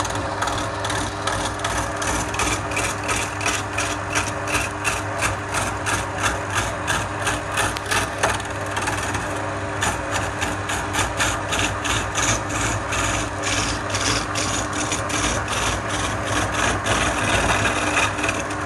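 Wood lathe motor running steadily while a hand-held turning tool cuts into a spinning wooden cylinder. The tool scrapes in a rhythm of about three strokes a second, with a short break just before halfway.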